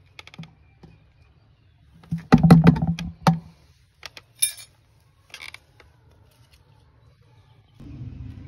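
Handling noise: scattered clicks, a loud clatter of rapid knocks about two to three seconds in and a few more clicks after. A low steady hum starts near the end.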